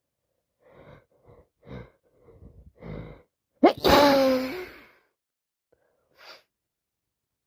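A woman with a cold sneezes. Several short, catching in-breaths build up, then one loud sneeze comes about three and a half seconds in, its voiced part falling in pitch. A short breath follows near the end.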